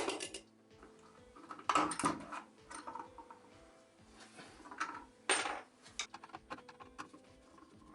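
Metal parts of a vacuum cleaner motor clinking and knocking as the motor is taken apart by hand after its impeller comes off: a string of separate knocks and clinks, the loudest about two and five seconds in. Quiet background music runs underneath.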